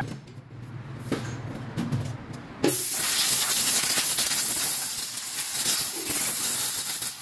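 Compressed-air blow gun blowing brake dust off a Land Cruiser's bare rear wheel hub and parking-brake assembly, a loud steady hiss starting a little over a third of the way in. Before it, a few light knocks of parts being handled.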